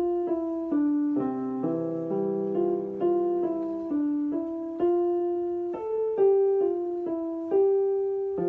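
Background music played on a piano or electric piano: a gentle melody of single notes and chords, each note striking sharply and fading.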